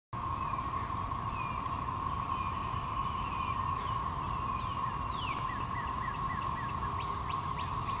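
Chorus of 13-year periodical cicadas (Magicicada) making a steady, unbroken drone, with birds chirping over it, including a quick run of short falling chirps in the second half.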